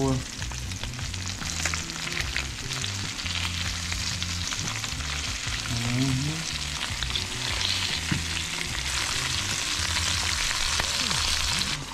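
Sheepshead fillets sizzling steadily in hot olive oil in a skillet.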